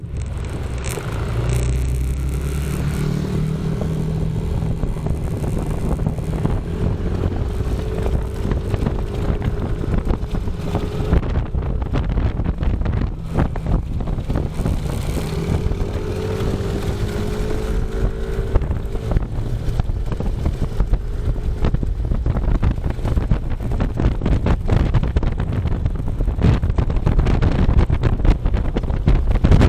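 A vehicle engine running on the move under heavy wind rumble on the microphone, its pitch rising slowly a few times.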